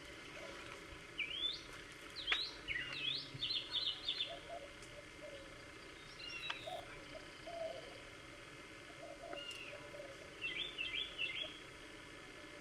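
Birds calling: short rising chirps and quick trilled phrases, in a burst a couple of seconds in and another near the end, with fainter lower notes between.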